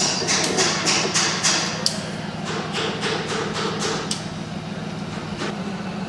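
A run of short metallic clanks or rasps, about three a second, with a brief break about two seconds in, over a steady low machine hum. The strokes stop about four seconds in.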